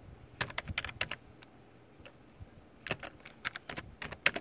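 Typing on a computer keyboard: short runs of quick key clicks with pauses between, about half a second in, around three seconds in, and again near the end.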